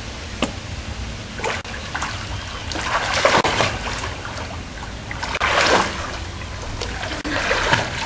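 Swimming-pool water splashing and sloshing, with two louder splashes about three and five and a half seconds in.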